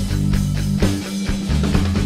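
Background rock music with guitar and drums, a steady beat.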